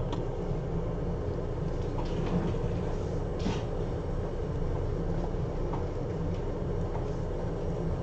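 Steady low mechanical rumble, with a few faint short scratches over it.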